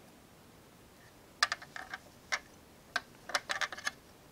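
Light clicks and taps from a 1:43 scale diecast model RV being handled, an irregular run of them starting about a second and a half in.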